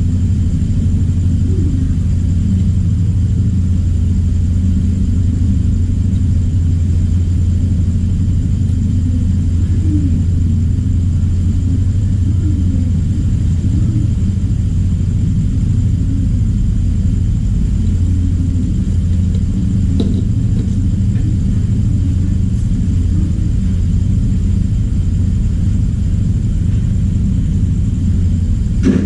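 A steady low hum, unchanging, with a faint high-pitched whine over it.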